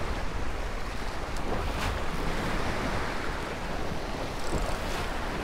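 Sea waves washing and splashing against the rocks of a jetty, with wind rumbling on the microphone.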